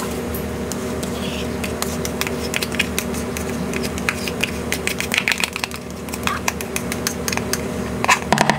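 Kitchen utensil scraping and tapping Greek yogurt out of a measuring cup: a quick, uneven run of small scrapes and clicks over a steady low hum.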